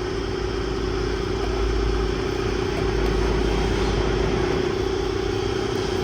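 A motor running steadily with a constant drone.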